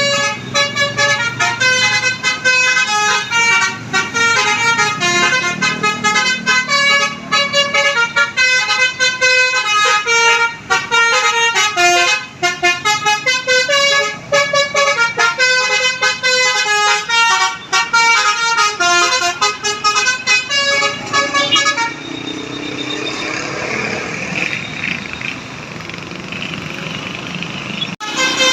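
Basuri telolet bus horn playing a fast melody of short, high-pitched notes for about twenty seconds. The tune then stops, leaving a stretch of unpitched noise, and starts again at the very end.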